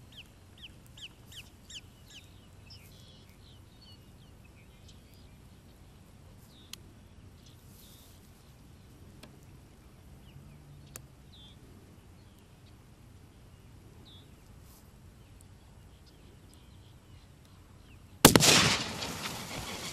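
Mostly quiet outdoor ambience: a bird gives a quick run of short falling calls, about five a second, in the first couple of seconds, then only faint scattered clicks. About eighteen seconds in, a single loud gunshot cracks out, followed by a continuing noisy rush.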